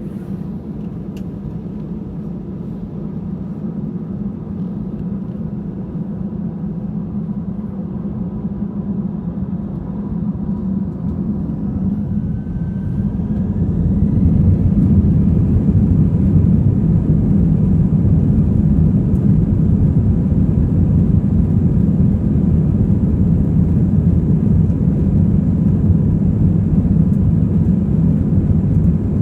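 Airbus A320 jet engines spooling up to takeoff thrust, heard from inside the cabin. A steady low rumble grows louder, and a faint rising whine comes in about halfway through, after which the rumble holds loud and steady.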